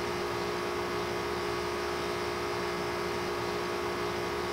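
Steady electrical-sounding hum with a few held tones over an even hiss, unchanging throughout.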